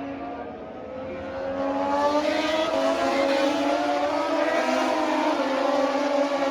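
Racing engines running at high revs on a circuit, their pitch rising from about a second and a half in and falling again near the end as they pass.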